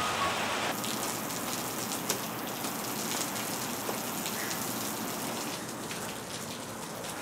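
Steady rain falling, an even hiss with a few light taps of drops.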